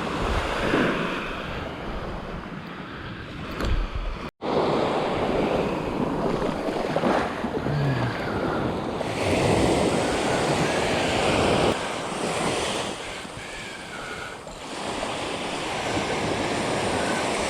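Ocean surf washing onto the beach in surges, with wind buffeting the microphone; the sound breaks off for a moment about four seconds in.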